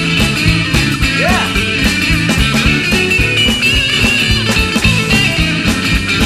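Rock band playing an instrumental passage: drums keep a steady beat under bass and distorted electric guitar.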